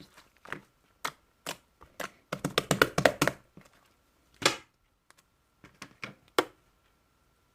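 Slime being pressed and played with by hand, giving sharp clicking pops and squishes. There is a quick flurry of pops in the middle, a longer squish after it, then a few last clicks before it stops.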